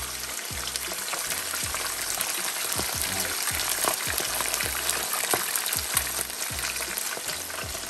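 Two whole snapper shallow-frying in hot oil at medium heat, sizzling steadily with many small crackles.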